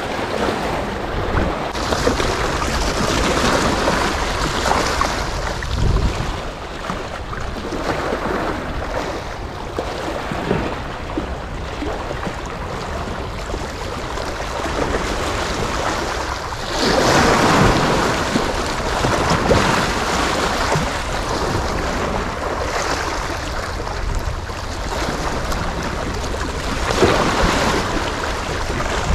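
Sea waves washing and splashing, with wind noise on the microphone. The wash swells louder twice, once past the middle and again near the end.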